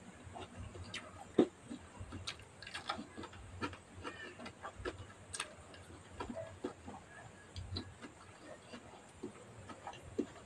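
Close-up eating sounds: chewing with irregular wet mouth clicks and lip smacks, and fingers tearing food apart by hand. One sharp click about one and a half seconds in is the loudest.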